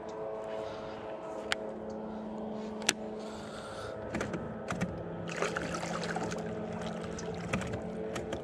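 A boat motor hums steadily, with a couple of sharp clicks. About four seconds in its pitch drops a little, and a run of knocks and rattles follows.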